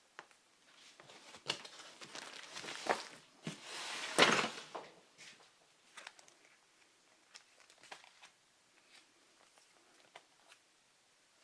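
Comic books being handled and shuffled: paper and packaging rustling and crinkling, loudest in a stretch from about one to five seconds in, then only light taps and clicks.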